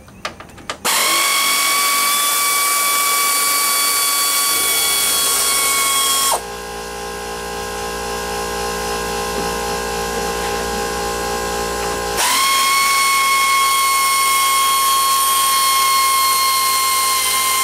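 Hand-held power tool running as the radiator's mounting bolts are backed out: a steady high whine for about five seconds, a quieter, lower-pitched run for about six seconds, then the loud whine again until near the end.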